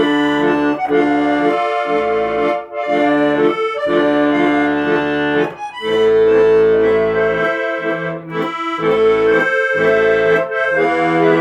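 Accordion music: sustained melody notes over held bass chords, played in phrases with brief breaks between them.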